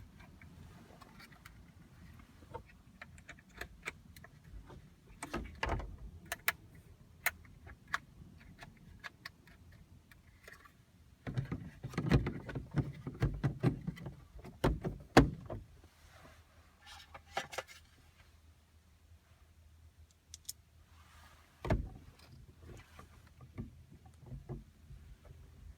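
Scattered clicks and knocks from hands handling and fitting plastic car-interior trim, with a dense run of knocks and rustling about halfway through and one more knock near the end.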